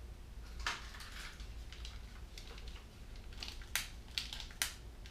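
A hand wire stripper clicking and snipping on thin trailer-harness wires. There is one sharp click about two-thirds of a second in, then three more in quick succession near the end.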